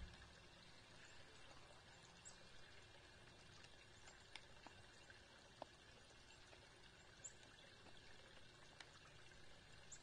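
Near silence: faint outdoor hiss with a few soft, scattered clicks.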